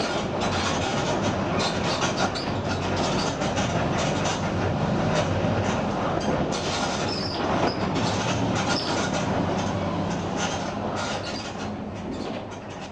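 Mercedes-Benz OF 1721 BlueTec 5 bus under way, its diesel engine at mid revs with a steady hum and the differential growling, over road noise and many sharp body rattles. The sound fades out near the end.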